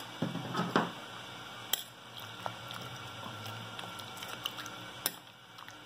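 Metal spoon stirring shrimp aguachile in a lava-stone molcajete: quiet wet squishing of the shrimp, vegetables and clamato, with a few sharp clicks where the spoon strikes the stone.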